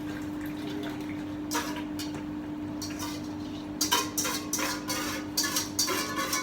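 A spoon clinking and scraping against a metal pot while a sugary marinade is stirred over heat, with a steady low hum underneath. The clinks are sparse at first and come sharper and more often from about the middle on.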